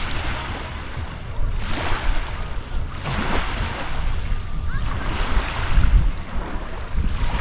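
Small waves washing up onto a pebble beach, swelling and falling back every second or two, with wind buffeting the microphone.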